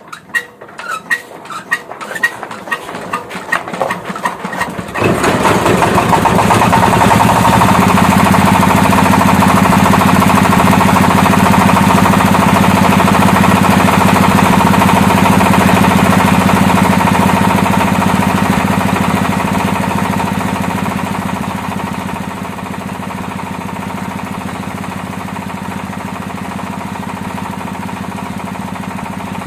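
Diesel engine that has stood unused for one to two years being cranked, its knocks speeding up until it catches about five seconds in, then running steadily and loudly; it eases off a little about twenty seconds in.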